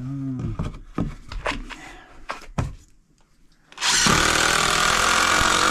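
A few knocks of lumber being handled, then about four seconds in a cordless drill runs steadily, driving a screw into the wooden floor framing.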